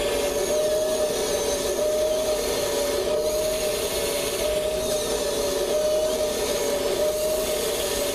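Electric motors and servos of a Kabolite 970 all-electric RC excavator running as its arm works, a steady wavering whine over a noisy hum, with faint higher whines sliding up and down.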